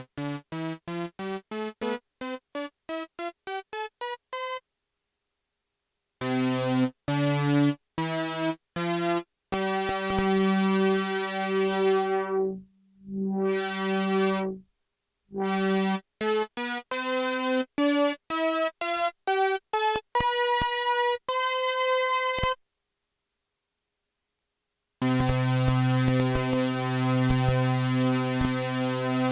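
Roland Jupiter-6 analog polysynth being played, which the title says is to show a sound issue. First comes a fast rising run of short, bright, buzzy notes, then held notes and chords with dead silences between them. The top of one held tone dulls and brightens again about 13 seconds in, and a long low chord starts near the end.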